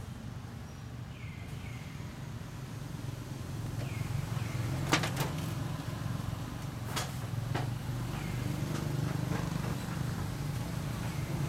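Outdoor ambience: a steady low hum with pairs of short, high chirps falling in pitch every few seconds, and a few sharp clicks, the loudest about five seconds in.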